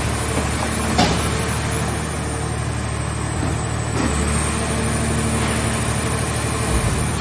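Engine driving a hydraulic scrap car body baler, running steadily, with a sharp metallic knock about a second in and a softer one around four seconds.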